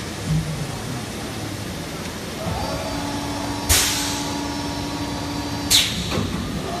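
IBM80H injection blow molding machine running with a steady mechanical noise. A humming tone holds for about three seconds in the middle, and two short, sharp hisses of air sound about two seconds apart, typical of the machine's pneumatic blowing and exhaust cycle.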